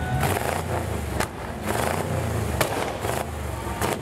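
Old hot-rod pickup truck's engine revving up and down, with three sharp exhaust cracks spread through the revving.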